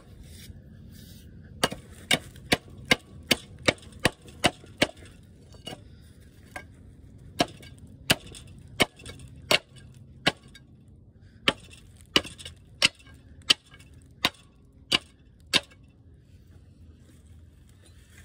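A steel bar driven down again and again into a cylinder bore of an air-cooled Wisconsin V4 engine, busting out the rusted, crumbling remains of a seized piston: about two dozen sharp knocks, one to two a second, some in quick runs, stopping a few seconds before the end.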